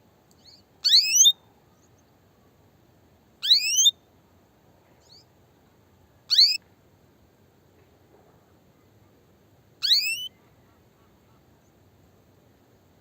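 Female canary giving its mating call: short, sharply rising call notes repeated four times a few seconds apart, with a couple of much fainter notes between them. The call is that of a hen ready to breed, calling males.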